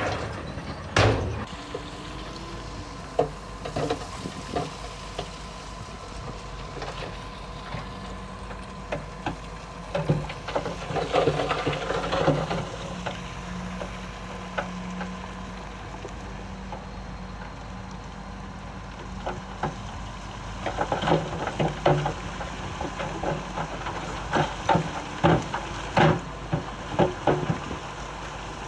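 Heavy earthmoving machinery running steadily on diesel power, with scattered metallic clanks and knocks that bunch together about a third of the way in and again through the last third.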